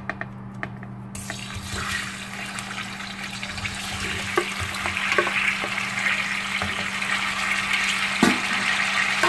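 Boiled chicken pieces hitting hot oil in a frying pan: a sizzle starts about a second in and grows steadily louder, with a few short knocks from a wooden spatula and plate against the pan.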